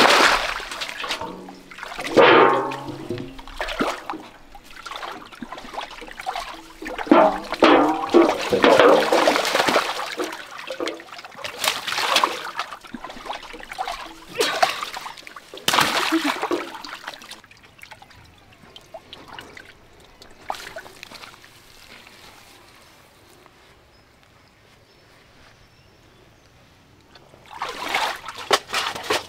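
Muddy water splashing and sloshing in a shallow pit as water is scooped and thrown out with a metal basin, then as a large catfish is grabbed by hand in the water. Loud, irregular splashes through the first half grow quiet for a while, then splashing picks up again near the end.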